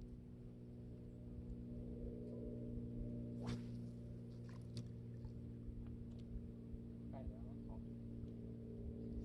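A steady low hum runs throughout, with a brief faint voice or two.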